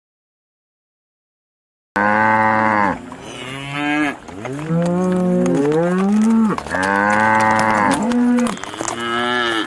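Cattle mooing: a run of loud, drawn-out moos, some sliding up and down in pitch, starting about two seconds in after silence.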